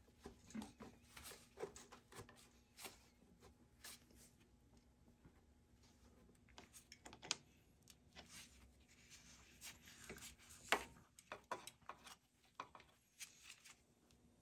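Faint, scattered clicks, taps and light rattles of hands and small tools working a motorcycle throttle cable and its adjuster, with sharper clicks about seven and about eleven seconds in.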